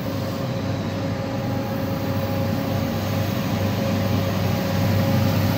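Diesel-electric locomotives of an approaching freight train running, a steady rumble with a held tone, slowly growing louder.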